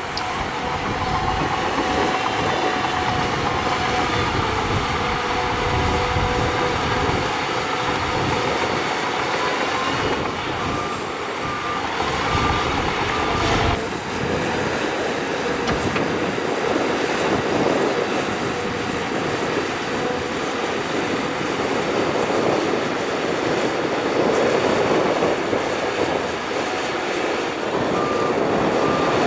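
Crawler bulldozer working, its diesel engine running under load with clanking, squealing steel tracks. A reversing alarm beeps in a steady series about ten seconds in and again near the end.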